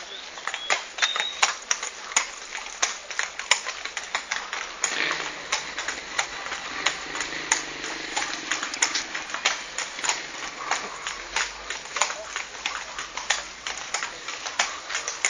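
Hooves of a mounted procession of mules and horses clopping on wet pavement: many overlapping, irregular hoofbeats. A softer rushing noise swells from about five seconds in and fades a few seconds later.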